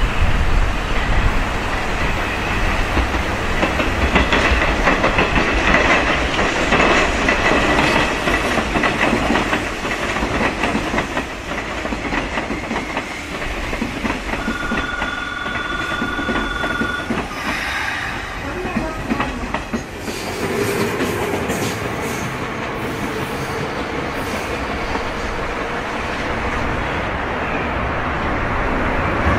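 Hanshin 8000 series electric train running through station pointwork, its wheels clattering over the rail joints. A steady tone sounds for a couple of seconds about halfway through. After a change near 20 seconds, a JR 221 series electric train approaches with a quieter, steady running noise and a faint hum.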